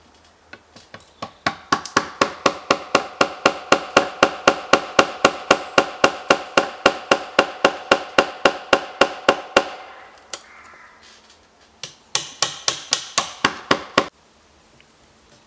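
Hammer blows on a joint of a timber pole shelter frame in a fast, even run of about five strikes a second, each ringing at the same pitch, lasting about eight seconds. After a short pause a second, briefer run of blows follows and stops suddenly.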